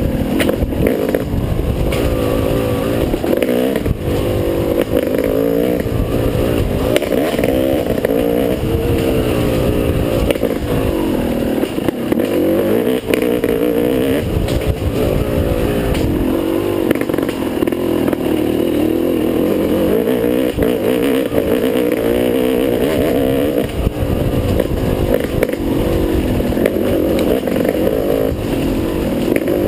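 Dirt bike engine revving up and down over and over as the bike is ridden hard along a tight, winding single track, with scattered knocks and clatter from the bike over the bumps.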